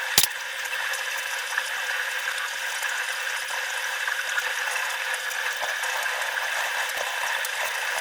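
Steady mechanical whirring with faint, fine, rapid ticking, like a small machine running.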